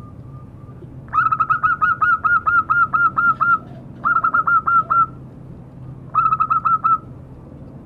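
Zebra dove (perkutut) of the mega mendung colour variety cooing in three bouts of quick, evenly repeated short notes at about five a second. The first bout lasts about two and a half seconds, and two shorter bouts follow.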